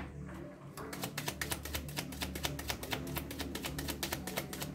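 A deck of tarot cards being shuffled by hand: a rapid patter of soft card clicks that thickens about a second in, over quiet background music.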